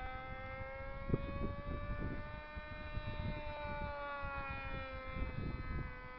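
Small engine droning steadily at high revs, its pitch rising slightly and falling again, over wind buffeting the microphone.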